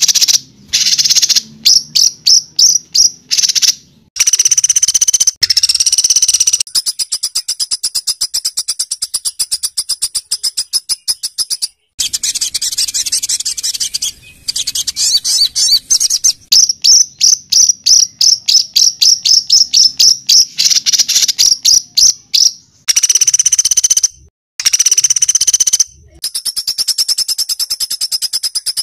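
Songbird song in the harsh, rapid 'tembakan kasar' (rough shots) style: runs of sharp high notes repeated several times a second, broken by short pauses, with long very fast trills in the middle.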